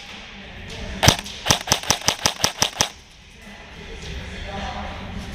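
Airsoft gun firing: one shot about a second in, then a quick string of about eight shots over a second and a half.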